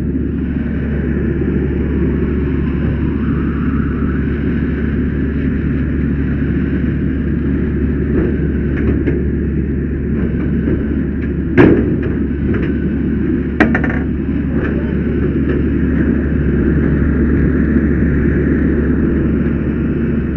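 Steady loud rumble and hiss of fire-scene machinery and water, with a low hum underneath; two sharp knocks, about two seconds apart, about halfway through.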